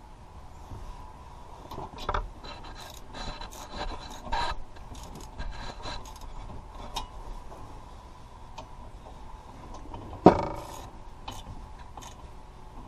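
Metal brake parts and hand tools being handled: scraping, rubbing and a string of clicks, then one loud metallic clank with a short ring about ten seconds in.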